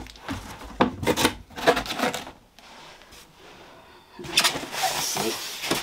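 Cardboard box and polystyrene packing being handled: a few knocks and scrapes in the first two seconds, a short lull, then rubbing and rustling from about four seconds in.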